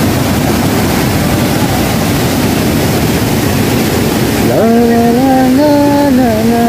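A small rocky river rushing steadily down cascades over rock slabs. About four and a half seconds in, a tune of long held notes starts over the water.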